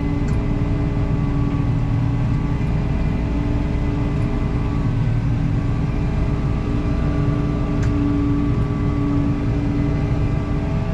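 Tractor engine running steadily under load, a continuous low hum with several steady tones, as the grain cart is filled from the combine.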